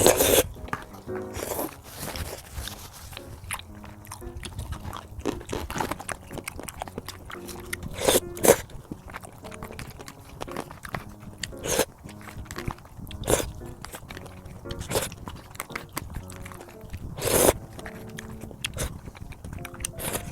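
A person eating, with crisp bites and crunches every second or two between chewing, over light background music.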